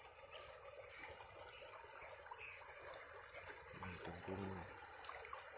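Swollen river current rushing and rippling over a low bank: a steady wash of running water. A brief low hum sounds about four seconds in.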